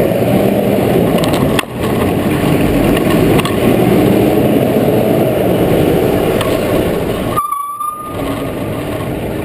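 Steady rumble of a Scania lorry's diesel engine following close behind, mixed with wind and road noise on a bicycle helmet camera. The sound cuts out for about half a second near the end, with a short thin tone.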